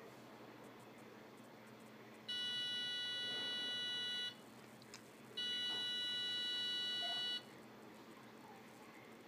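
Electronic buzzer of an Arduino Bluetooth lock circuit sounding two steady, high-pitched buzzes of about two seconds each, a second apart, with a faint click between them. The buzzes signal the lock being triggered from the phone app.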